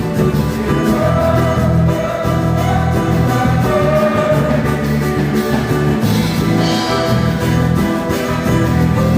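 Worship music with guitar and singing, playing steadily.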